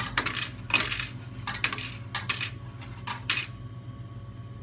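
Vending machine coin changer paying out coins into the return cup: a quick run of metallic clinks lasting about three and a half seconds, over a steady low hum. Every coin put in comes back out, so the changer is dispensing properly.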